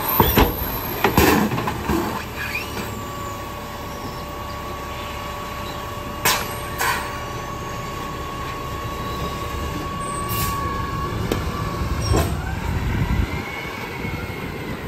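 McNeilus rear-loader garbage truck's hydraulic packer running its compaction cycle: a steady whine over the idling diesel engine. Clanks and knocks come from bins and trash in the first seconds, with two sharp knocks around six seconds in. Near the end the engine note rises as the truck pulls away.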